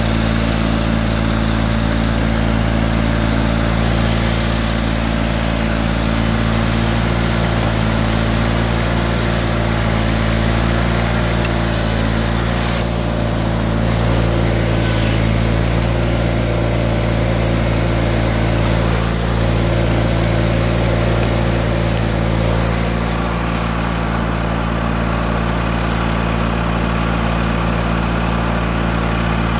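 John Deere 318 garden tractor's two-cylinder Onan engine running steadily, driving a front-mounted snowblower.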